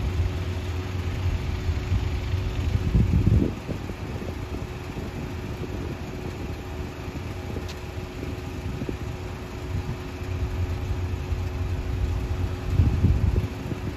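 Passing lake freighter's engine running with a steady low hum. Wind buffets the microphone in loud gusts about three seconds in and again near the end.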